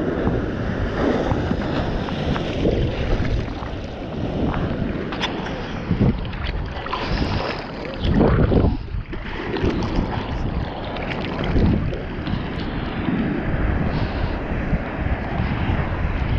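Seawater sloshing and splashing around a bodyboard right at the water surface, with wind buffeting the microphone. About eight seconds in, a louder wash of water as a wave breaks over the board's nose.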